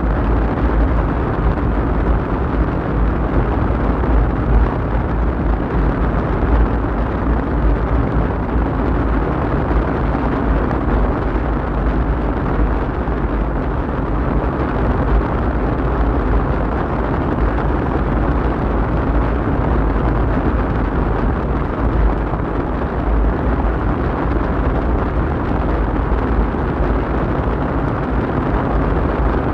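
Steady low rumble of a car driving along the road, heard from inside the cabin: engine and tyre noise with no change in pace.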